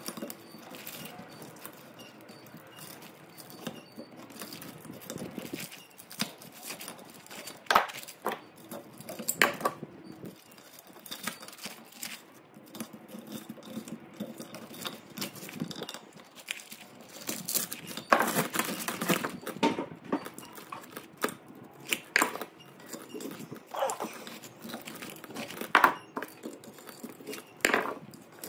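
Hand work on a burnt three-phase motor's stator as the old copper winding is stripped out: irregular clicks, knocks and metallic clinks, with a longer stretch of scraping and rustling about two-thirds of the way in.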